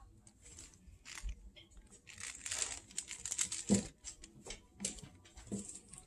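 Five-week-old cockapoo puppies scuffling about on a blanket: irregular rustling, crinkling and scrabbling, busiest in the middle, with a few soft thumps in the second half.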